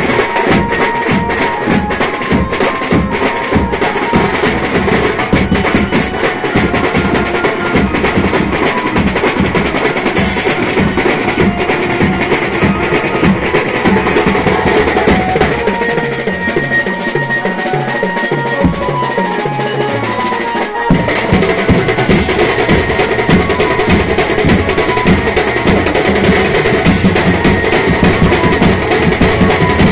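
Live banjo-party band: fast, loud drumming on toms and cymbals beaten with sticks and big drums beaten with mallets, with a melody line played over the beat. The beat thins out near the middle and comes back in full after a sudden break about two-thirds through.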